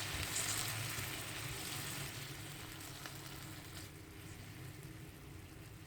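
Dried Bombay duck and potato curry sizzling in a pan just after water has been added, a steady hiss that slowly fades. A couple of faint ticks come about three and four seconds in.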